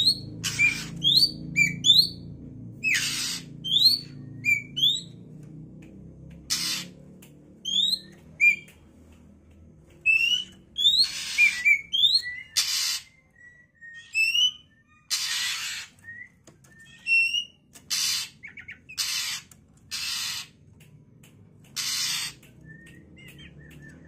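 Young oriental magpie-robin calling repeatedly: short, harsh, noisy calls about every one to two seconds, with short whistled notes sliding up or down in between.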